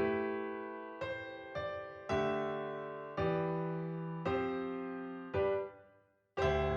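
Background music: slow electric piano chords, each struck and left to fade, about one a second, with a brief pause near the end.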